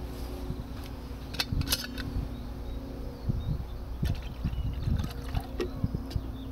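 A plastic water bottle and a metal camping pot being handled at a small gas stove: a few light taps and clinks over a steady low hum.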